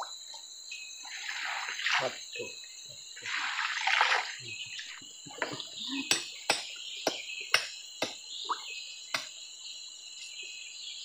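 Water splashing twice as hands work in shallow river water, then a run of about eight sharp knocks on stone, over a steady high insect drone.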